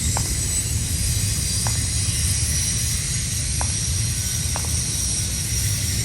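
Freight train cars rolling past with a steady low rumble and a high hiss, with light clicks every second or two.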